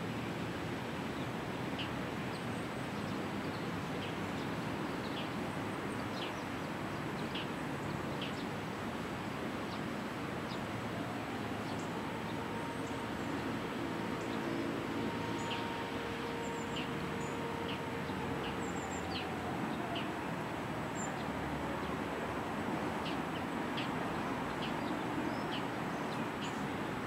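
Outdoor ambience with a steady background hiss and small birds chirping briefly and often. A faint steady hum passes through the middle and fades out with a falling pitch.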